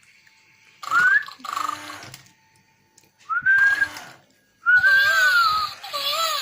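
Tekno Kitty robot cat toy giving electronic meows: about four short whistle-like calls that rise in pitch and then hold. The last call is longer, with its pitch wavering up and down.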